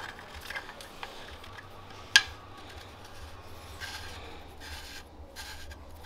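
Short scraping and rubbing strokes from hand work on exhaust hardware, with one sharp metallic click about two seconds in.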